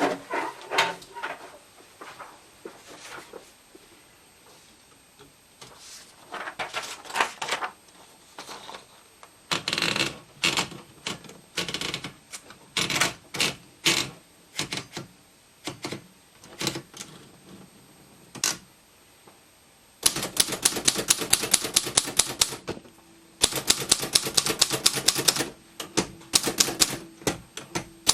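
Triumph Tippa De Luxe portable manual typewriter typing: a few scattered clicks and slow, irregular keystrokes at first, then fast, even typing for the last third, with one short pause.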